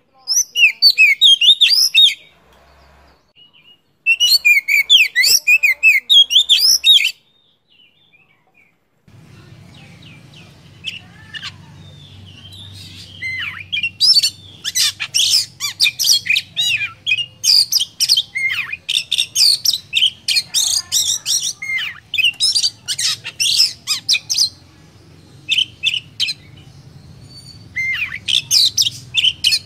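Oriental magpie-robin singing: two bursts of rapid, varied whistled and harsh notes, a short pause, then a long, dense run of song. A low steady hum sits under the song from about nine seconds in.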